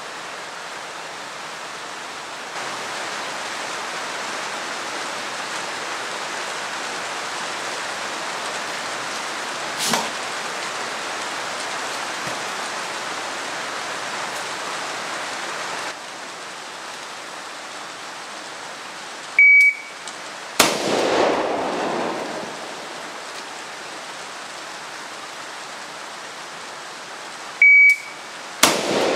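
Steady hiss of rain with a single click about a third of the way in. Twice, a shot timer gives a short high beep and about a second later the 13.5-inch-barrelled AR-15 fires, each shot very loud with a long ringing echo: once about two-thirds through and again near the end.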